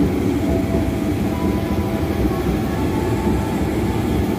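KRL Commuter Line electric train running along the platform, a steady low rumble with a faint motor whine that rises slowly in pitch.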